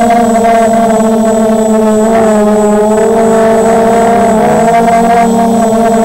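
Brushless motors and propellers of a 250-size FPV racing quadcopter in flight, picked up by its onboard camera: a loud, steady whine whose pitch drifts slightly with the throttle and dips briefly about four and a half seconds in.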